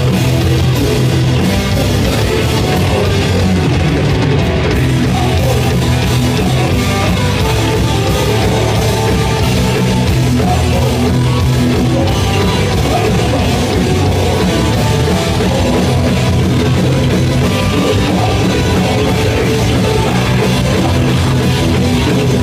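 Heavy metal band playing live at full volume: electric guitars and drum kit in a continuous, dense wall of sound.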